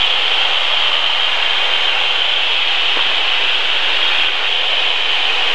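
Steady in-flight cockpit noise of a light single-engine airplane in cruise, heard through the headset intercom as an even, unbroken hiss.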